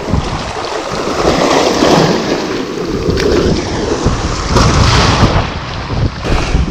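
Wind buffeting the microphone in uneven gusts, over small waves washing and foaming across shoreline rocks.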